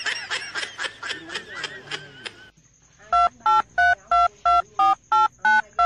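A person laughing for about two and a half seconds, then a quick run of about ten telephone keypad touch-tones, roughly three a second, each a short beep of two notes at once.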